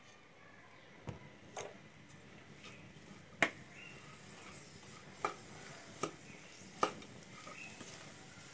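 Wooden spatula stirring and tossing chopped mixed vegetables in a pan: soft rustling with about half a dozen sharp knocks of the spatula against the pan, the loudest about three and a half seconds in.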